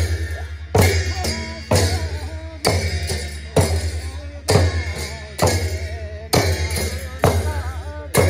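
Gurung shamans' frame drums beaten in a steady dance rhythm: a loud stroke about once a second, each followed by a run of quicker, lighter beats, with a wavering chanted line above.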